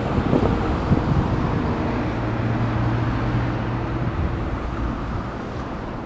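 Wind rumbling on the microphone, with a low steady motor hum underneath that shifts lower about two seconds in and fades about four seconds in.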